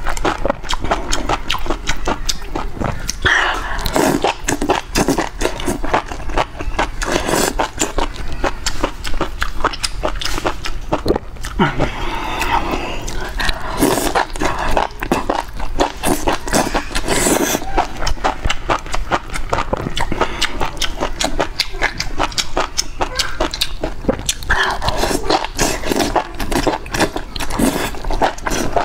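Close-miked slurping and chewing of enoki mushrooms in spicy broth: a dense, irregular run of wet smacks, clicks and slurps.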